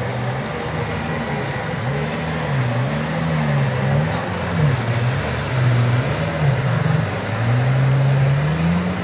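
Jet ski engine revving up and down as it carves turns, its pitch rising and falling about once a second, then climbing and holding higher near the end.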